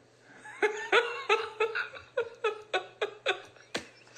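A man laughing: a long run of short 'ha' bursts, about three a second, starting about half a second in.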